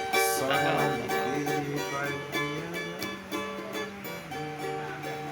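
Cavaquinho being strummed, playing on instrumentally, with a sustained lower line underneath and a brief bright burst of noise just after the start.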